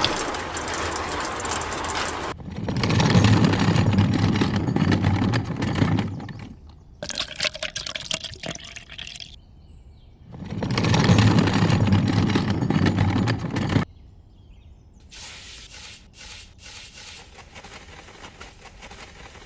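Wet concrete mix sliding and slopping out of a small metal toy wheelbarrow in two loud pours of a few seconds each. Quieter wet scraping and dabbing follow as the mix is spread. A small electric mixer motor runs for about the first two seconds.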